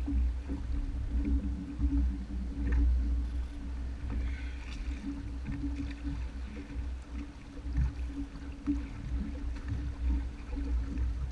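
Honda F-12X AquaTrax personal watercraft engine running steadily, with water splashing and heavy wind rumble on the microphone.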